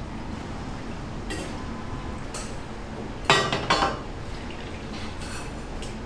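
Kitchen dishware clinking a couple of times, then a louder clatter of several quick knocks a little past halfway, over a steady low background hum.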